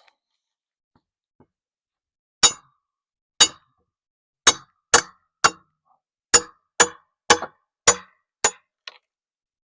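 About ten hard metal-on-metal blows, like a hammer striking, each with a short metallic ring. They start a couple of seconds in, spaced about a second apart at first and then coming faster. A stubborn piece of the corral is being knocked loose.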